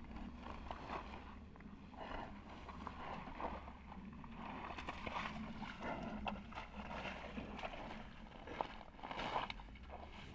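Water buffalo gouging muddy turf with its head and horns: irregular rustling, tearing and squelching of grass and mud with small cracks and clicks, over a steady low rumble.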